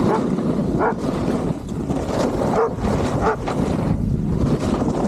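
Standard poodles giving a few short barks, about a second in and twice more around two and three seconds in, over steady wind noise rushing on the microphone.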